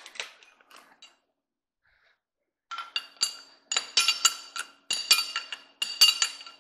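Metal-on-metal clinking with a bright ring, in quick repeated strokes starting almost three seconds in, as the steady rest is tightened and clamped down on the lathe bed.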